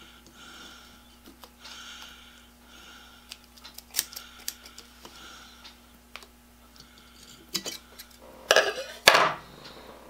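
Dull scissors snipping through masking tape again and again, about one cut a second, with a few sharp clicks of the blades; the shears need sharpening and cut poorly. Near the end comes a louder scraping rustle.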